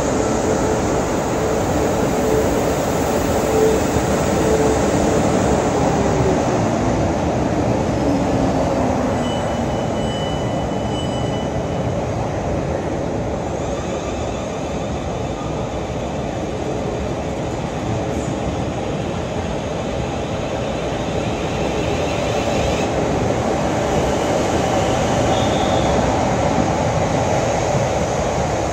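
Class 450 Siemens Desiro electric multiple unit running past along the platform: a steady rumble of wheels and running gear, with a falling whine a few seconds in.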